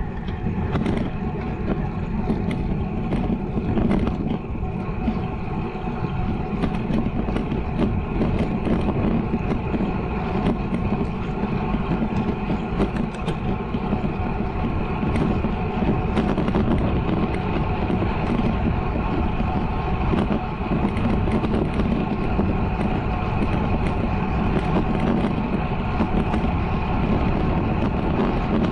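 Focus Izalco Max road bike ridden at speed on smooth asphalt: a steady rush of wind on the action camera's microphone with tyre hum from the road, and faint small ticks high up.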